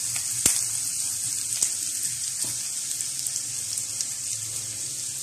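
Chopped onions sizzling in hot oil on a flat tawa griddle: a steady high hiss with a few sharp crackles, the loudest about half a second in.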